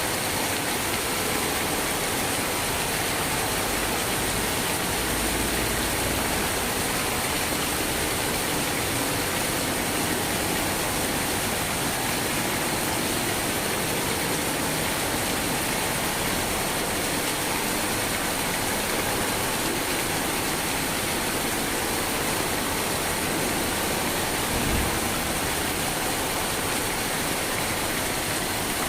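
Steady rain falling, a continuous even hiss with no pauses, and one brief low thump near the end.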